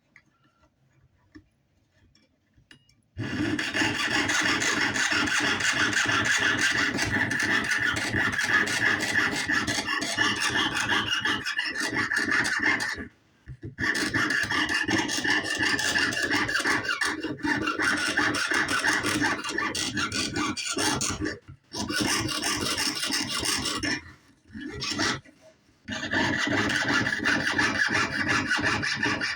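Jeweler's saw cutting through metal sheet with rapid short back-and-forth strokes. It starts about three seconds in and stops briefly a few times.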